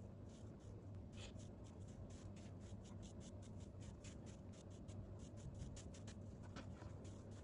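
Hands sliding and pressing over a rolled, tahini-filled dough ring on a wooden tabletop, stretching it outward: a quick run of faint soft scuffs and ticks over a low steady hum.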